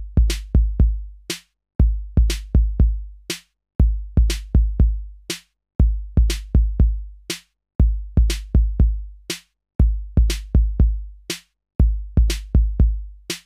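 Electronic outro music: a drum-machine beat of deep kick drums and sharp clicks, repeating in a loop about every two seconds.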